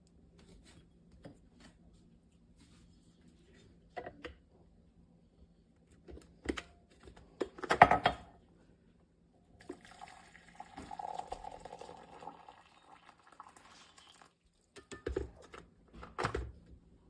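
Handling of a glass coffee maker and cup: a few sharp knocks and clinks, the loudest about eight seconds in, then liquid pouring for about two seconds, and two more thumps near the end.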